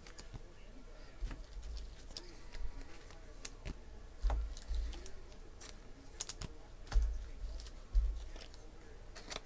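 Panini Select football trading cards being handled and sorted onto stacks on a table: scattered light card clicks and slaps, with a few dull thumps against the table around the middle and near the end.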